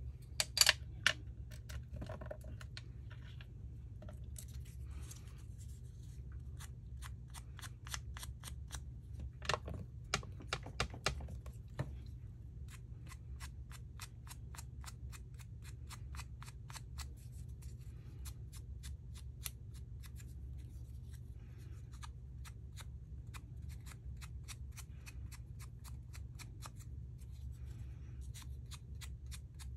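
Paper being inked: an ink pad dabbed quickly against a small paper piece, giving a long run of light taps at about four a second, with a few louder handling knocks before the steady tapping sets in. A low steady hum lies underneath.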